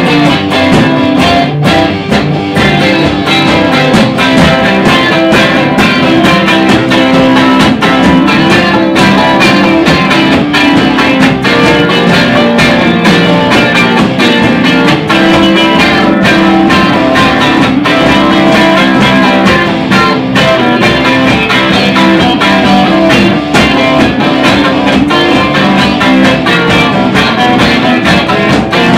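Soul-blues instrumental played by a three-piece band: two guitars, rhythm and lead, over a drum kit keeping a steady beat.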